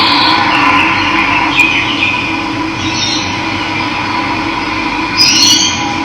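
Running water, a steady rush, with small birds chirping over it: short high calls at the start, around two and three seconds in, and a louder burst of chirps near the end.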